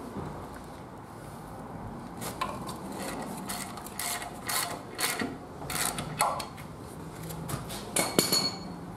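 Metal clinks and knocks of a wrench and wheel nuts as a road wheel is bolted onto a rear hub, irregular and a few a second, with the loudest clink near the end ringing briefly.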